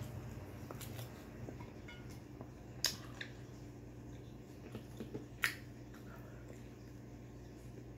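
Close-up eating sounds of a person chewing fried pork and rice eaten by hand, with a few sharp wet clicks, the loudest about three seconds and five seconds in.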